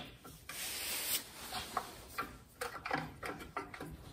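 Light clicks and taps of pliers, a rubber fuel hose and a glass jar as the fuel line is worked off a small engine's carburetor to drain the gas tank. There is a short hiss about half a second in.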